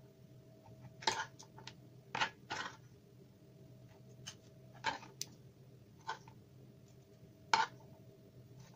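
Chopped lemon and ginger pieces being packed by hand into a small glass jar: irregular light knocks and clicks of the pieces against the glass, about half a dozen, over a faint steady hum.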